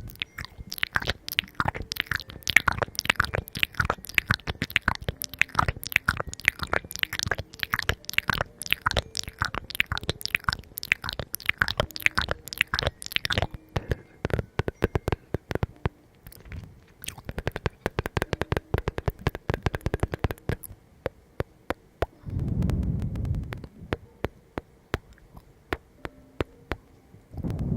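Close-miked crunchy chewing: a dense run of crisp crunches for about the first half, then sparser crunches, with a low muffled rumble twice near the end.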